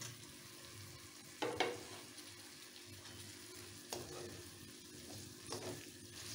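Tomatoes, green chillies and onions frying in oil in a kadai with a faint sizzle, while a metal spatula stirs them, scraping the pan a few times.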